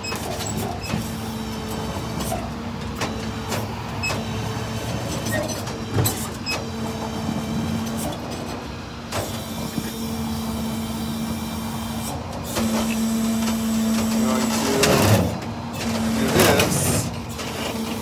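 Tow truck's engine running steadily with a constant hum, growing louder about two-thirds of the way through. Footsteps on asphalt and a couple of louder knocks near the end.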